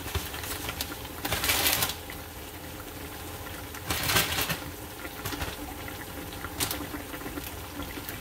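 Pan of loofah-squash and noodle soup simmering on the stove over a steady low hum, with a few short bursts of noisy bubbling or hissing, the loudest about a second and a half and four seconds in.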